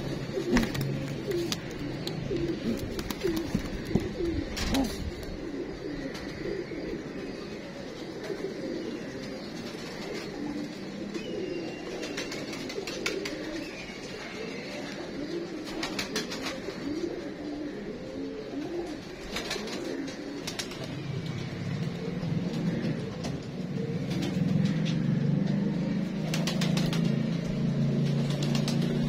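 Domestic pigeons cooing continuously, low and wavering, with a few sharp clicks. A low steady drone comes in about two-thirds of the way through and grows louder toward the end.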